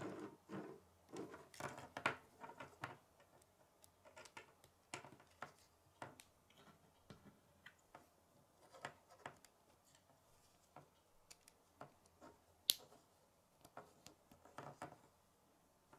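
K'nex plastic rods and connectors clicking and rattling as they are handled and snapped together by hand. The clicks come at irregular times, thickest in the first few seconds, with one sharp snap about twelve seconds in.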